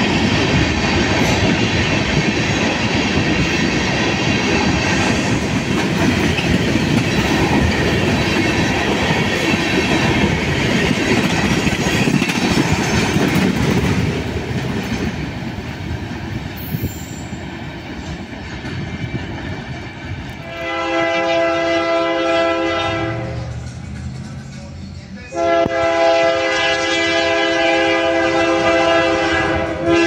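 Freight train of tank cars and covered hoppers rolling past close by, wheels clattering over the rail joints. About two-thirds of the way in, a diesel locomotive's air horn sounds a chord for about three seconds, then after a short gap starts a long held blast.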